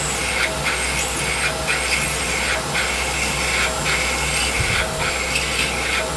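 Tormach PCNC 1100 CNC mill peck-drilling a hole in an aluminum block with a twist drill. The spindle runs steadily, and the drilling noise changes in a cycle about once a second as the drill pecks in and retracts to break the chips.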